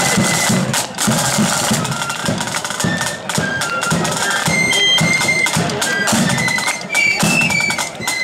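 Marching flute band playing: a high, shrill melody on flutes over crisp side-drum strokes and a steady drum beat.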